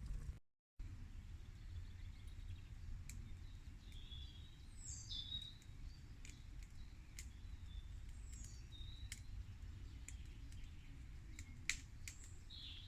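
Quiet outdoor ambience: small birds chirping now and then, a few short high calls, over a steady low rumble, with scattered faint clicks. The sound drops out briefly just after the start.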